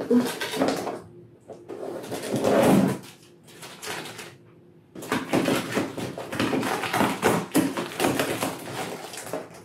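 Knife scraping and slicing along packing tape on a cardboard box, in scratchy strokes with short pauses about a second in and around the middle, then more continuous scraping and rustling of the box.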